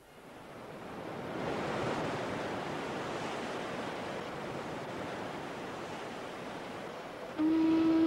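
Sea wash and surf fading in and then holding steady. Near the end, a ship's horn starts one long, steady blast, louder than the sea.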